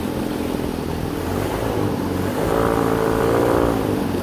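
An engine running steadily at an even speed. A brief higher pitched sound that bends up and down sits on top of it from about two and a half seconds in.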